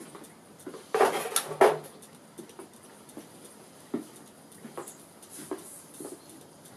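Model hot-air (Stirling) engine built after Roland Reichelt's 'Barock' design, running on its spirit burner with the belt-driven model workshop in tow; its moving parts give light, irregular ticks and clicks. A louder two-part clatter comes about a second in.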